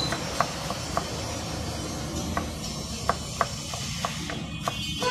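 Kitchen knife chopping red onion on a wooden board: irregular sharp taps of the blade striking the wood, over a steady background hiss.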